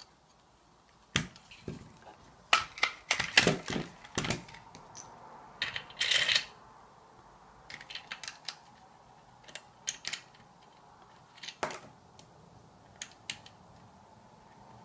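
Hard plastic parts of a dog bowl stand knocking and clacking as they are fitted together, a dense run of loud clacks in the first half. Fainter scattered ticks follow as a small plastic thumb screw is turned into the frame.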